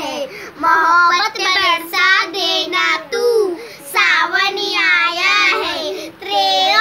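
Young girls singing a song together in high children's voices, unaccompanied.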